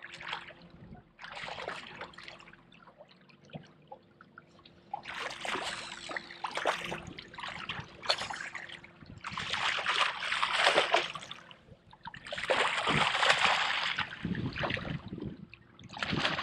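Water splashing in irregular bursts of a second or two, ending with a hooked striped bass thrashing at the surface beside the boat.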